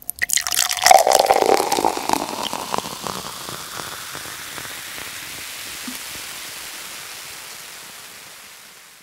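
Liquid being poured, with a quick run of glugs and drips in the first two or three seconds and a pitch that falls as it goes. It then trails off into a faint hiss that slowly fades away.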